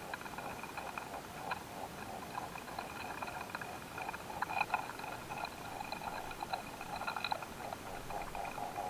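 Close-miked meadow recording at a grass seed head where quail stink bugs are mating. A faint, steady high-pitched tone runs under many small, scattered clicks and crackles.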